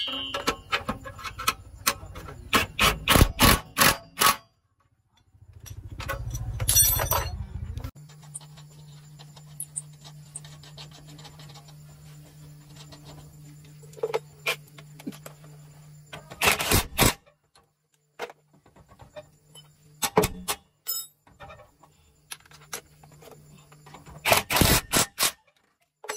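Short runs of rapid metal knocks and clanks, several times over, with a steady low hum running through the middle stretch.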